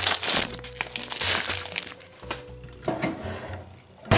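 Crinkling plastic wrapper being handled as a frozen mini pizza is unwrapped, loudest in the first second or so, with a few sharp clicks later on. Background music plays underneath.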